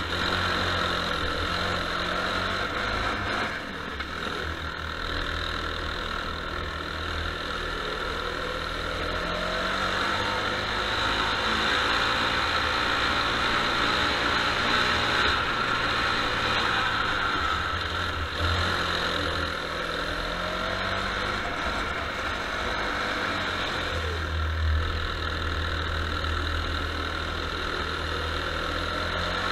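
Go-kart engine running as the kart laps the track, its pitch rising and falling over and over as the driver comes off and back on the throttle through the corners. It is heard from a camera mounted on the kart.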